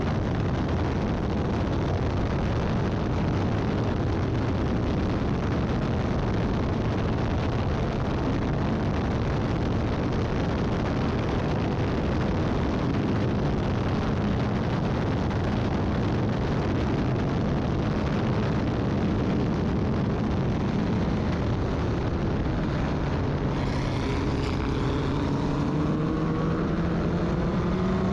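Formula Ford race car running at speed: a steady roar of engine, wind and tyre noise. Over the last few seconds the engine note climbs as the car accelerates.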